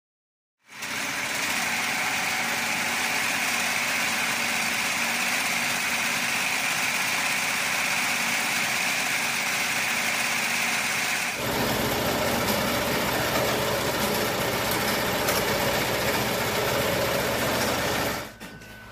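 Melco multi-needle commercial embroidery machine running steadily as it stitches a design, with a change in its sound about eleven seconds in; it stops shortly before the end.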